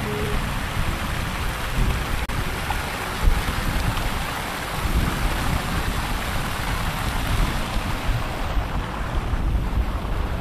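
Steady rush of splashing water from an outdoor fountain's jets and the surf beyond, with wind buffeting the microphone.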